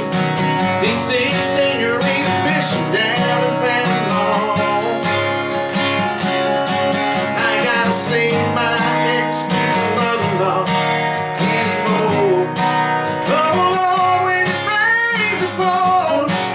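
Two acoustic guitars strumming and picking a country song, with a man's voice singing in places.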